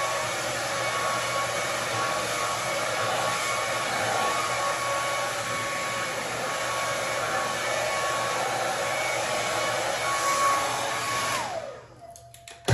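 Handheld hair dryer blowing steadily with a constant motor whine, then switched off near the end, its whine dropping in pitch as the motor winds down. A sharp knock follows at the very end.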